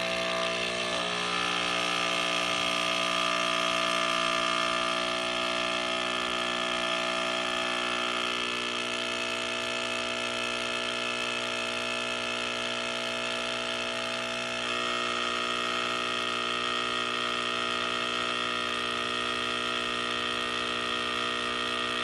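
DeLonghi Nespresso Inissia espresso machine brewing from a capsule: its pump runs with a steady, loud buzz, shifting slightly in tone twice along the way.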